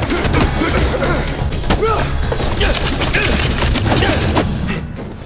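Action-film fight soundtrack: a rapid run of hits, thuds and whooshes with short shrill cries, over a low steady rumble of score, dipping briefly near the end.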